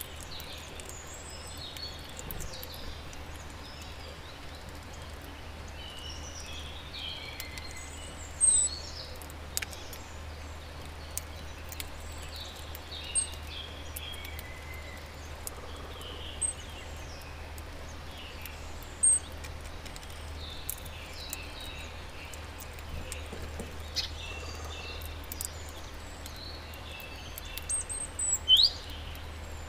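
Small songbirds chirping and singing around a garden feeder over a steady background hum, with a few short, sharp high chirps standing out about a third of the way in, near the middle and near the end. Faint scattered clicks can also be heard.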